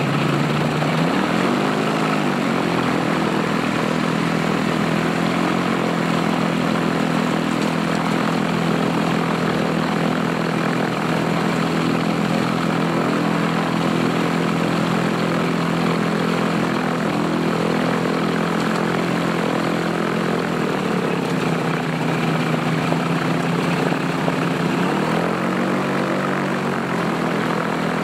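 Ultralight airplane's propeller engine running steadily at low taxi power, over a wide rushing hiss. Its pitch rises and falls briefly, once about two seconds in and again near the end.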